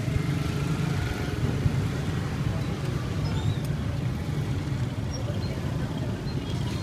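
Steady low rumble of street traffic, with motorbike engines passing close by.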